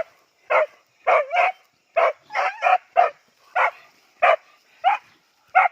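Hunting dog barking in a rapid, steady series of short barks, about two a second, some coming in quick pairs.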